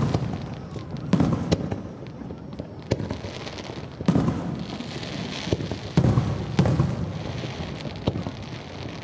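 Aerial fireworks shells bursting in a series of booms, one every one to two seconds, each with a rolling low rumble. Crackling fills the gaps between the booms.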